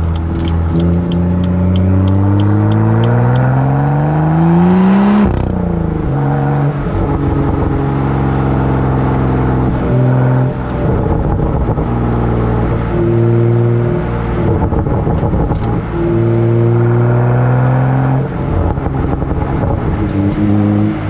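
Exhaust note of a BMW M2's N55 3.0-litre turbocharged straight-six, heard close to the tailpipe. It pulls hard with the pitch rising steadily for about five seconds, then drops sharply with a brief hiss at the gearshift. After that it runs at lower, steadier revs with small rises and falls.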